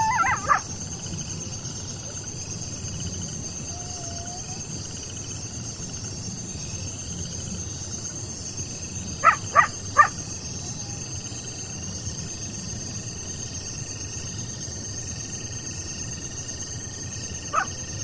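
Night chorus of crickets, a steady high-pitched trill, under coyotes: a howl cuts off just after the start, then three short yips in quick succession about halfway through and a single yip near the end.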